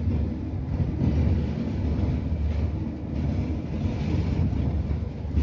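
Inside a Fiat car cruising at highway speed: a steady low drone of engine and tyres on the road, with the wind gusting against the car.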